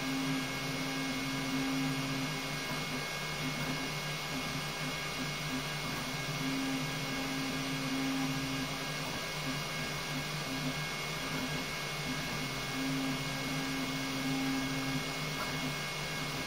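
Flashforge Adventurer 5M Pro 3D printer running, its motors making a low tone that holds for a couple of seconds at a time and then breaks into short stuttering bits as the moves change. Underneath is a steady whirring hum with a thin high whine.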